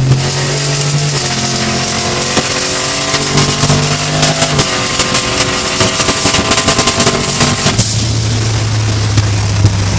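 V8 engine running hard during a race, its pitch dropping in steps a couple of times, with a rapid rattle of sharp cracks from about three to eight seconds in. Near the end it settles into a steady lower drone.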